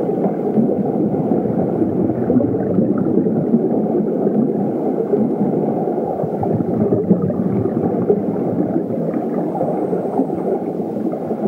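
Muffled, steady rushing of wind and propeller noise in flight, as picked up by a GoPro mounted on a 5-inch FPV quadcopter.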